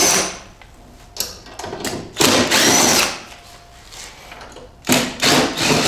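Impact driver with a Phillips bit running in two short bursts, about two seconds in and again about five seconds in, its motor whine rising and falling, as it backs out the screws holding a scooter's front carrier.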